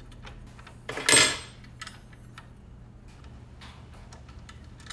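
Small metallic clicks and clinks as the arbor bolt and washer of a DeWalt DWS779 sliding miter saw are turned loose by hand, with one louder, brief clatter about a second in.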